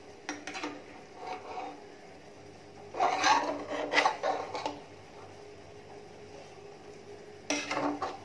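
Metal slotted spoon scraping and knocking against the inside of a pressure cooker as cooked biryani rice is stirred. It comes in a few short bursts: small ones near the start, the loudest about three to four and a half seconds in, and another near the end.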